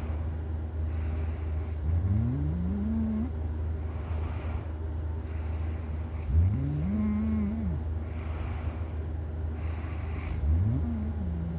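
A sleeping person snoring: three rising snores about four seconds apart, with breathing between them, over a steady low hum.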